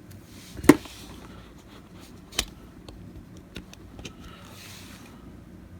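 Handling a small digital multimeter and its test leads: a sharp click with a knock a little under a second in, a second click about two and a half seconds in, then a few light ticks and some rustling.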